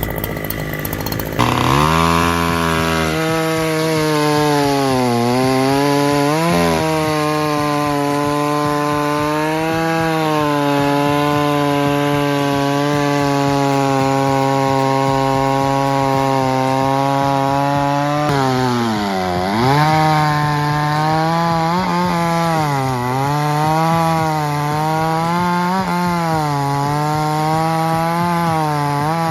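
Chainsaw running at high revs while cutting wood, starting about a second and a half in. Its engine note sags several times as the chain loads up in the cut and climbs back.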